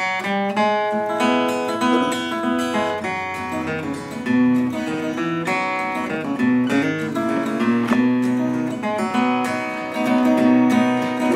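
Solo acoustic guitar strumming chords, the instrumental introduction to a gospel song before the vocals come in.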